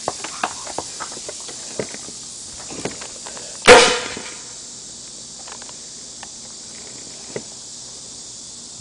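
Homemade PVC pneumatic airsoft bazooka firing, charged to about 40 psi: one sharp pop of released air a little under four seconds in, followed by a short rushing hiss. Light clicks and taps of handling come before the shot.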